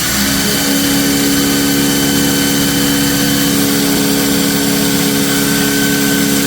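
Automatic abrasive belt grinder machine running at a steady speed: a constant hum over a wide even hiss.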